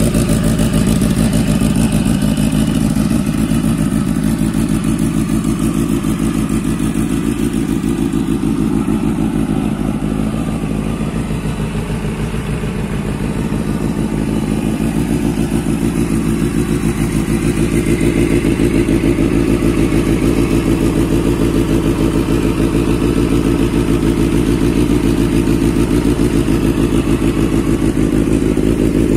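Benelli BN 600's 600 cc inline four-cylinder engine running steadily, dipping slightly in loudness about halfway through before picking back up.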